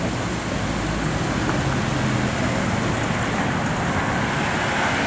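Steady engine and road noise of a moving road vehicle, with a low engine hum underneath.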